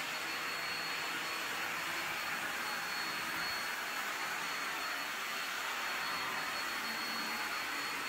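Hoover commercial backpack vacuum running steadily, a continuous rushing suction noise with a thin high whine, shut off abruptly at the very end.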